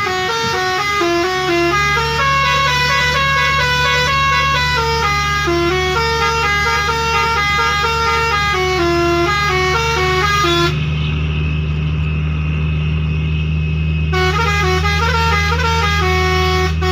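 Six-trumpet basuri telolet air horn playing a quick melody of stepped notes over a steady low engine hum. About two-thirds of the way through, the tune breaks off for roughly three seconds, leaving only the hum, then starts again near the end.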